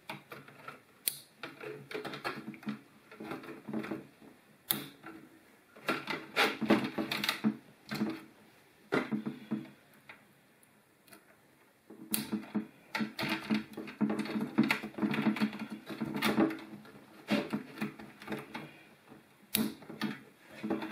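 Irregular clicking and light rattling of wires and a small wire connector being handled and joined inside a fluorescent light fixture housing, in busy clusters with a quieter pause about halfway through.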